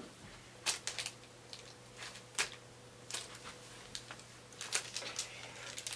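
Faint, irregular light clicks, knocks and rustles of someone moving about and picking through small things on a floor, over a low steady room hum.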